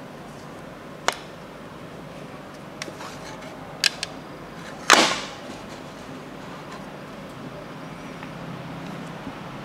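Hard plastic toy playset pieces being handled: a few sharp clicks and taps, then one louder plastic knock about five seconds in with a short rattling tail, over a steady low hum.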